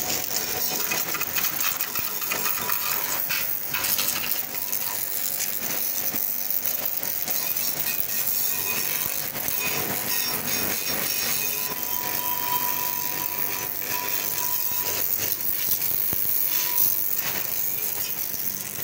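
High-pressure water jet from a pressure washer lance spraying steadily against a metal trolley, a continuous hiss and spatter as it blasts off stuck-on cement.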